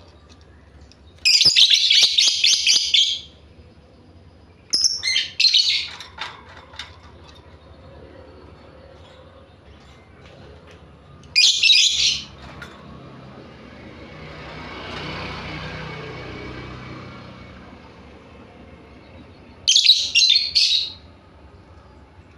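Lovebird singing in four bursts of rapid, high-pitched chattering trills, each one to two seconds long, with quiet gaps between them.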